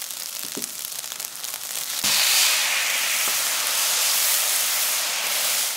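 Fried rice frying in a hot pan with light crackling. About two seconds in, soy sauce hits the bare hot pan and sizzles loudly and steadily as it scorches.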